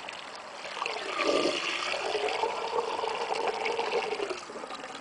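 Watery slurry of ground-up food waste pouring from a plastic watering can into the plastic inlet pipe of a biogas digester, a gurgling gush that starts about a second in and tails off near the end.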